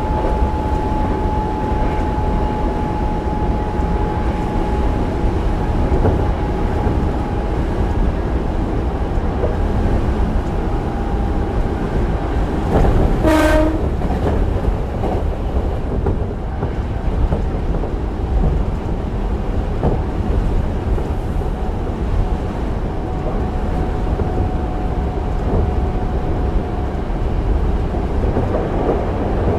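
Hankyu 8000-series electric train with Toshiba GTO-VVVF drive running along the line, heard from inside the car: a steady rumble of wheels on rail with a high, even whine that fades out after about twelve seconds. About halfway through comes a short horn blast.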